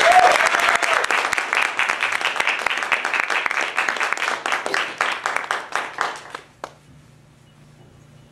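Audience applauding, the clapping thinning out and stopping about six and a half seconds in, with one last single clap just after.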